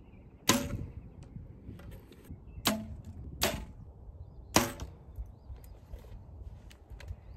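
Compound bows being shot, four sharp snaps of string release and arrow launch, the first about half a second in and the last a little before the middle, with faint clicks between.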